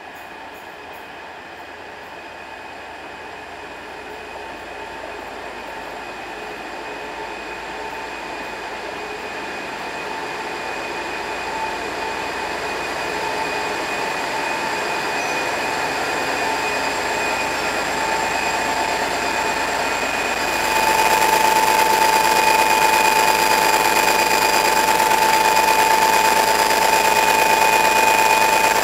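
Class 57 diesel locomotive's turbocharged EMD two-stroke engine running with a steady whine as it draws slowly closer, growing louder throughout. About two-thirds of the way in it is suddenly louder, with the whine stronger, as the engine runs close by.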